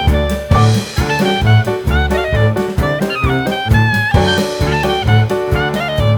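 Background jazz music: a horn melody over drum kit and bass, with a steady beat.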